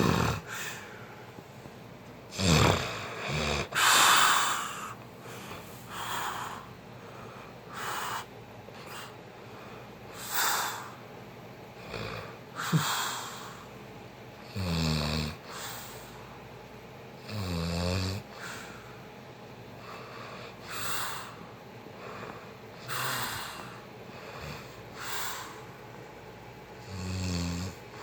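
A sleeping person snoring, one snore about every two seconds with quieter breathing between. Some snores have a low buzzing rattle, others are breathier and hissing.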